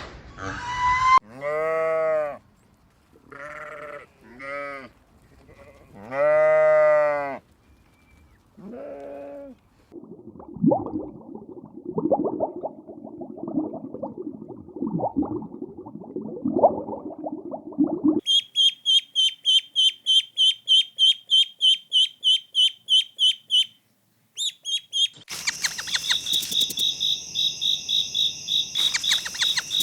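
Sheep bleating several times, each call about a second long. Then a rough, scratchy stretch for several seconds, followed by fast high-pitched chirping at about five chirps a second that runs on with steady high tones near the end.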